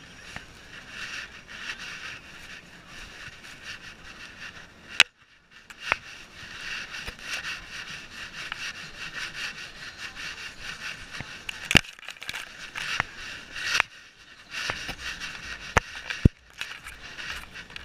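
Rubbing noise on a camera strapped to a dog: a steady hiss as fur brushes the housing, broken by several sharp knocks and clicks on the mount.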